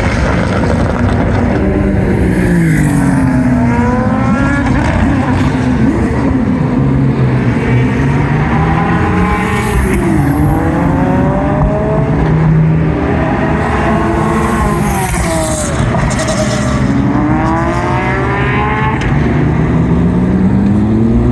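GT2 race cars passing one after another on track, their engines running at high revs with notes that repeatedly fall and then rise in pitch as they go by.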